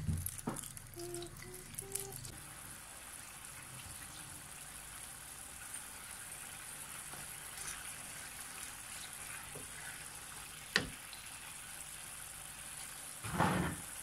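Black pepper sauce simmering in a frying pan, a steady bubbling hiss. A single sharp knock comes about eleven seconds in, and there is a short, louder burst of stirring near the end.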